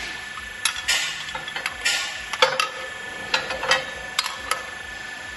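Irregular sharp metallic clicks and clinks, about a dozen, some in quick clusters, as the hydraulic rebar bender's foot pedal is fitted and its parts handled, over a faint steady whine.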